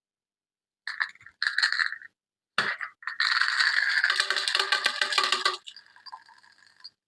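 Surprise-egg or toy packaging being opened and handled by hand: short bursts of crinkling and clicking, then a dense crackling run of about two and a half seconds that dies down to a faint rustle.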